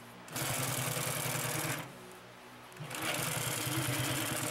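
Consew P2339RB double-needle walking-foot (triple-feed) industrial sewing machine stitching through double-layer vinyl and climbing over a seam. It runs in two spells: it starts just after the beginning, stops before two seconds, and starts again near three seconds.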